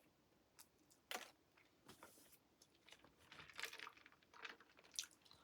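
Faint eating sounds: scattered soft crunches and clicks of someone chewing fast food, with a slightly louder crunch about a second in and a short run of them past the middle.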